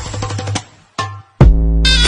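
Music: one track drops away after about half a second, then a single short hit and a brief gap. A new track starts about a second and a half in with a heavy bass drum hit and a sustained melody.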